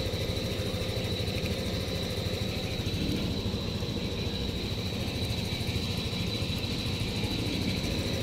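An engine idling steadily, a fast even low pulse, with a thin steady high whine above it.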